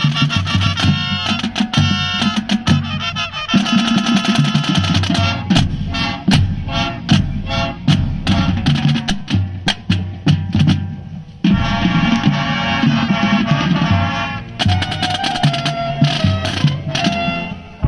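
High school marching band playing live: brass chords over drums and percussion. Around the middle the sustained brass mostly drops out, leaving a passage of sharp drum hits, then the full band comes back in.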